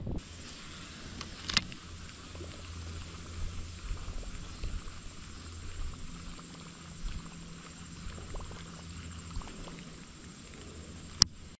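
Quiet river ambience with a steady low hum, and scattered light clicks from handling a baitcasting reel; one sharp click just before the end.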